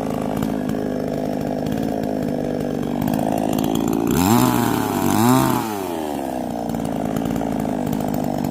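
Chainsaw engine running steadily while cutting up a fallen tree, its pitch rising and falling twice about four to five seconds in.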